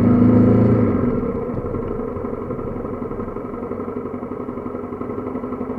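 Single-cylinder motorcycle engine running steadily at low revs close by. It is loudest in the first second, then eases slightly lower.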